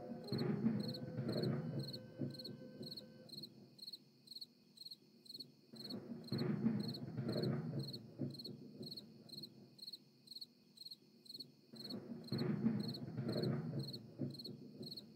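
Crickets chirping in an even pulse of about two to three chirps a second, with a lower, rougher sound swelling up three times, about six seconds apart.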